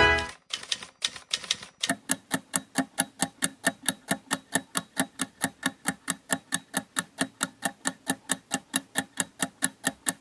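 Countdown timer sound effect: even, rapid clock-like ticks, about four a second, starting after a few scattered ticks. Background music fades out in the first half second.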